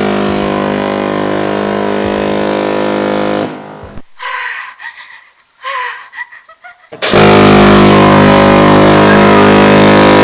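A very loud, distorted steady tone held for about three and a half seconds, then a quieter stretch of short sliding pitched sounds, then the loud distorted tone again from about seven seconds in.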